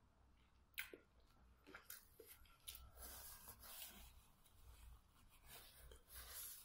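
Faint rustling and crinkling of a paper tissue being handled and unfolded, with a small sharp click about a second in.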